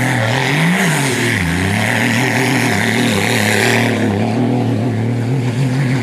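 Rally-raid car engine revving hard as the car drives through deep sand, its pitch rising and falling with the throttle, over a steady hiss.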